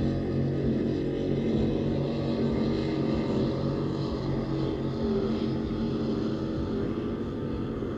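Racing powerboat engine running flat out across the water, a steady drone that slowly fades as the boat draws away.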